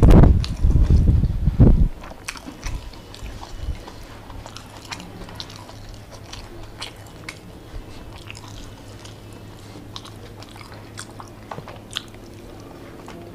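Close-miked eating by hand: chewing and mouth clicks of rice, with scattered soft clicks of fingers working rice in the bowl. A loud low rumble fills the first couple of seconds.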